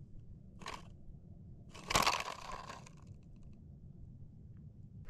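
A brief crunching rustle, then a louder one lasting about a second, over a low steady rumble.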